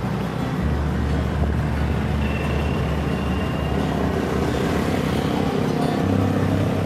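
Road traffic: a steady engine drone and road noise from passing motor vehicles. The low hum shifts in pitch about half a second in and again near the end.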